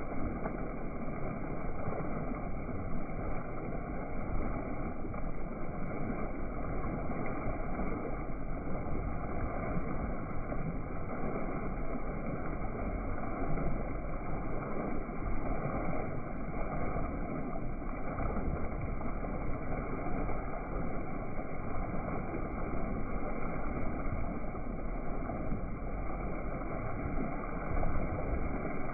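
Steady rushing noise of a boat under way, water gurgling along the hull with low rumble.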